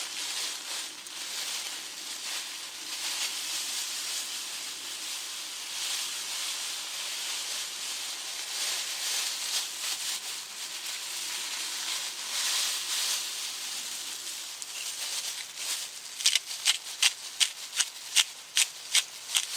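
Food sizzling in a pan over a fire: a steady, uneven sizzling hiss. Near the end a quick run of sharp taps comes in, about three a second.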